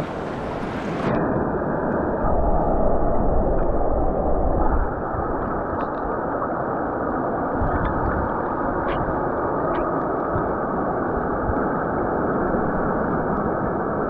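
Steady, muffled rush of river water with some gurgling and a few faint ticks.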